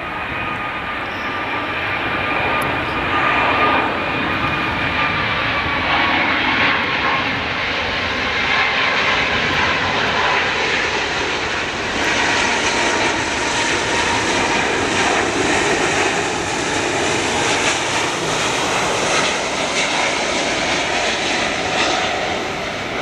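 Boeing 777 jet airliner on landing approach with gear down, its twin engines running with a steady roar and a high whine that wavers slightly in pitch. The sound grows louder over the first few seconds and stays loud, getting brighter about halfway through as the plane passes low and close.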